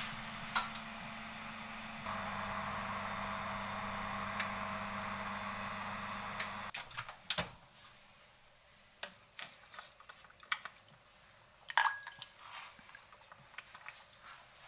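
A steady appliance hum with a few fixed tones. It steps louder about two seconds in and stops abruptly about seven seconds in. After that come scattered light clicks and knocks, the sharpest about twelve seconds in.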